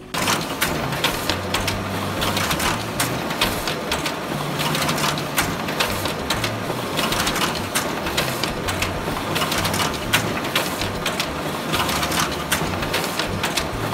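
Office printer printing, feeding sheets out one after another with a steady run of rapid clicks and mechanical whirring.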